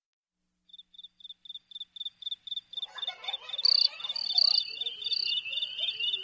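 Insects calling: a high, evenly pulsed chirp about four times a second, growing louder, joined about three seconds in by a denser chorus of other calls.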